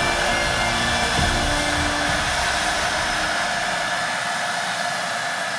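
Fendt 818 Vario tractor running at work with a pneumatic precision seeder, its vacuum fan giving a steady high whine over the engine. The deep engine rumble fades about three and a half seconds in as the rig moves off, while the whine carries on.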